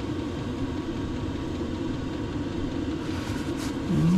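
A steady low rumble like a motor running, with a short, louder rising hum near the end.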